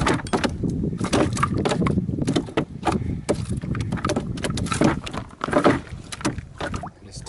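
A chain pickerel thrashing in a canoe, its body slapping and knocking against the hull in a rapid, irregular run of knocks and clatters over a low rumble. The knocks thin out after about five seconds.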